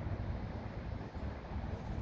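Wind buffeting the microphone outdoors: a low, uneven rumble that rises and falls in gusts.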